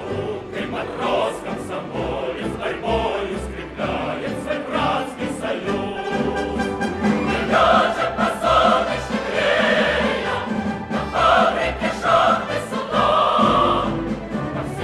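Choral music: a choir singing long held phrases over a musical accompaniment.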